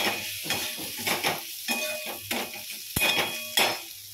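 Steel spatula scraping and stirring diced ridge gourd, potato and onion frying with ground spices in a kadai, the food sizzling under repeated scrapes about twice a second. A sharp click comes about three seconds in.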